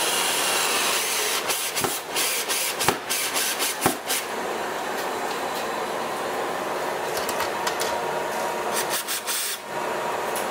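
Makita cordless drill-driver driving screws into a wall bracket: a steady whir with irregular clicks and knocks, in two spells near the start and near the end.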